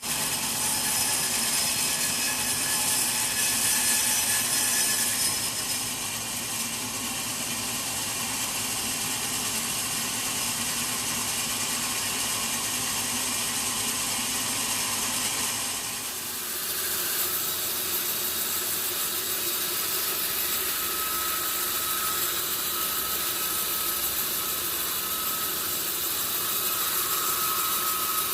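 Sawmill saw cutting through a large log, a steady dense machine noise. About sixteen seconds in the sound changes abruptly, and a faint steady whine runs under it later on.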